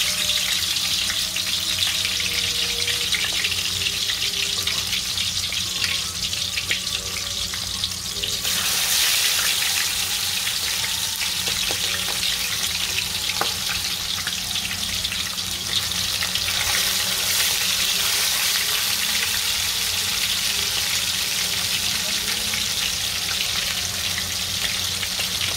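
Seasoned chicken thighs sizzling and crackling as they fry in a pot of hot oil. The sizzle swells louder about eight seconds in and again around sixteen seconds, as more thighs go into the oil. A steady low hum runs underneath.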